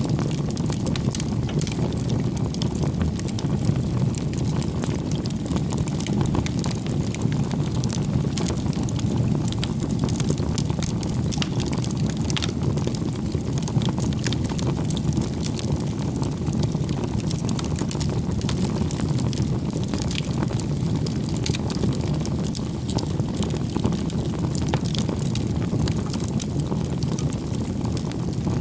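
Wood fire burning: a steady low rush of flames with frequent small crackles and pops.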